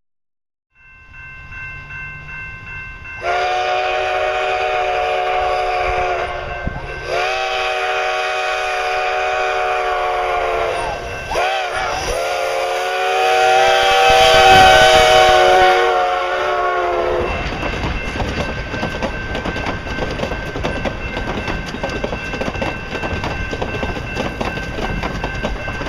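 Steam locomotive No. 480's chime whistle blows two long blasts, a short one and a long one, the grade-crossing warning signal, and the last blast is the loudest. The train's cars then roll past close by, wheels clicking over the rail joints.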